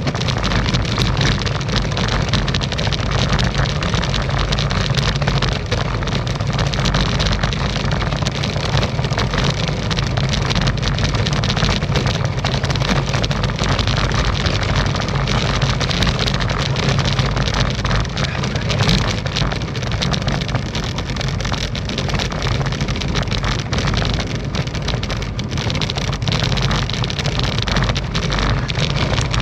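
Specialized Tarmac SL7 road bike on Roval Terra CLX wheels rattling over cobblestones: a continuous dense clatter of small knocks over a steady low rumble.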